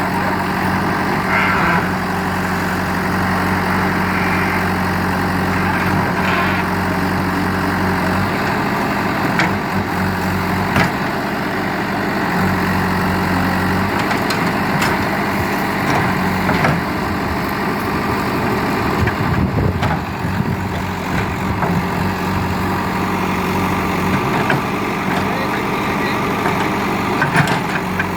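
JCB 3DX backhoe loader's Kirloskar diesel engine running steadily, its note changing twice as the machine works, with scattered short knocks and clanks.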